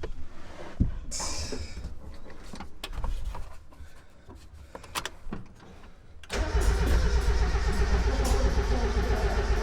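Starter cranking the 1.8-litre engine of an NA Mazda Miata. It comes in suddenly about six seconds in, after a few clicks and knocks, and keeps going to the end. This is the crank-no-start fault being chased: the car has fuel and spark but won't run.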